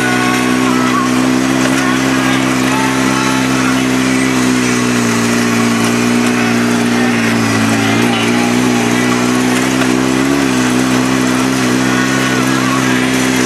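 Side-by-side UTV's engine running steadily as it drives a rocky dirt trail, its pitch dipping slightly around the middle and wavering near the end, under a steady noisy rush.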